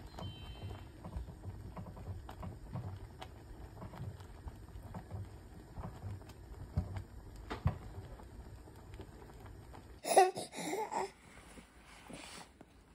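Silicone spatula stirring thick rice porridge in a small pot on a gas stove, over a low steady rumble with scattered light taps against the pot. About ten seconds in, an infant cries loudly for about a second.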